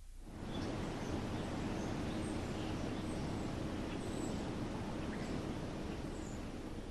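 Steady background hiss that sets in just after the start, with a few faint, short, high chirps scattered through it.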